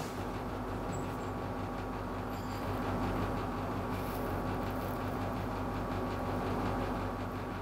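Steady mechanical hum of room equipment: a constant low drone with a faint higher tone over even noise.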